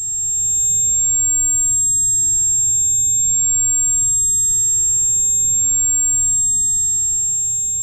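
Ear-ringing (tinnitus) sound effect: a steady high-pitched ringing tone with fainter higher and lower tones, over a low muffled rumble, fading slowly near the end.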